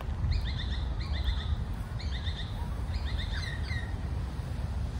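Bird calling in about four short bursts of quick repeated high chirps, roughly one burst a second, over a steady low rumble.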